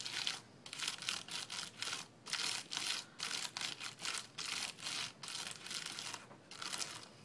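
Stiff bristles of a Big Shot die brush scrubbed back and forth over a thin metal Rose Garden Thinlits die and the cardstock in it, in quick scratchy strokes about two or three a second that stop near the end. The bristles are poking through the die's openings to free the small cut-out paper pieces.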